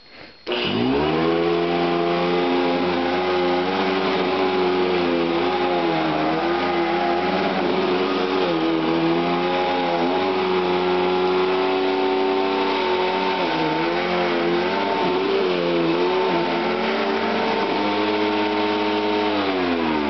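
Vintage Eureka upright vacuum cleaner switched on, its motor spinning up and then running with a steady hum and whine, the pitch wavering at times, before it is switched off and winds down near the end. The owner thinks the motor bearings might be a little worn, though it could be just dirt in the fan.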